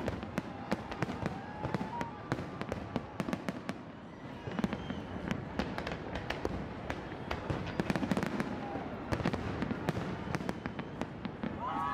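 Aerial fireworks display going off: a dense, irregular run of sharp bangs and crackles, many per second.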